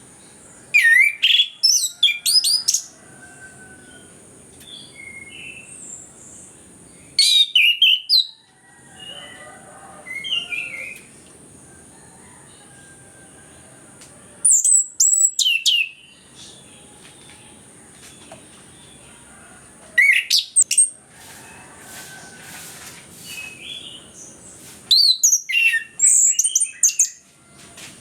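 Orange-headed thrush (anis kembang) singing: five loud bursts of fast, sweeping high whistled phrases about every five to six seconds, with softer chirps between them. A steady high-pitched tone runs underneath.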